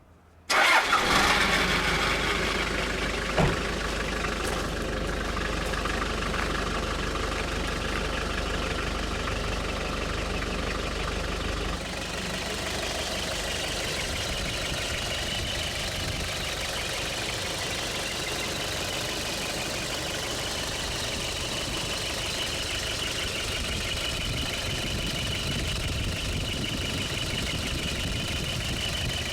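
Toyota Land Cruiser Prado 78's engine starting about half a second in and then idling steadily, settling a little lower after about twelve seconds, with a sharp click soon after it catches.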